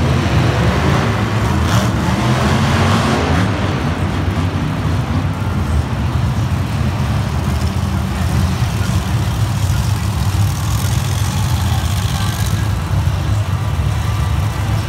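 Several monster trucks' supercharged V8 engines running together as the trucks drive slowly and idle in a line: a loud, steady, low engine drone.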